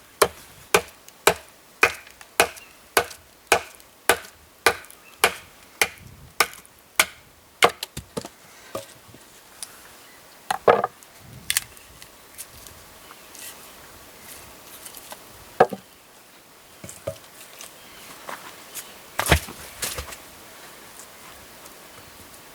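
Wood being chopped: a steady run of sharp chopping strikes, about two a second, for roughly the first eight seconds, then a few scattered, louder knocks and quieter stretches.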